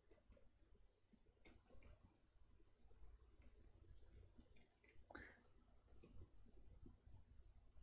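Near silence broken by faint, scattered clicks and taps of a marker writing on a white board.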